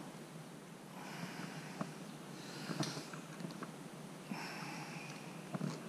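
Close breathing and sniffing through the nose, in several soft swells, with a few faint clicks as a hook is worked free of a black bream's mouth.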